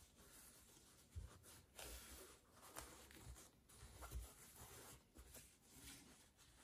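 Faint rustling and rubbing of denim as hands fold and smooth a jeans hem, with a few soft bumps against the ironing board.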